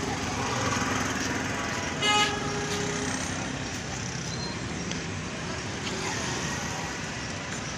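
Busy street traffic: motor rickshaw and motorbike engines running, with a vehicle horn tooting briefly about two seconds in, over the chatter of a crowd.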